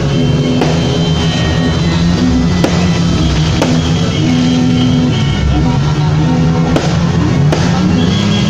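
Loud rock music with drums and held notes, with sharp drum hits about once a second.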